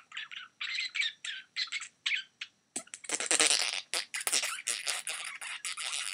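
Intro sound effects for an animated logo: a run of short, high chirpy bursts, about three a second, then from about three seconds in a denser stutter of harsher, scratchy noise bursts that thins out near the end.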